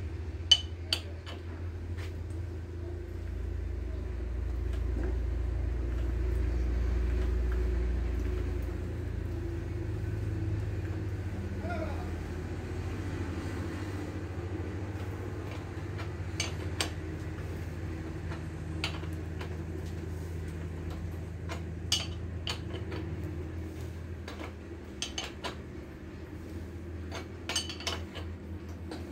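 Metal tool clinking and knocking against a bicycle's bottom bracket as it is worked loose, in scattered sharp clinks: a couple near the start, more in the second half. A steady low hum runs underneath.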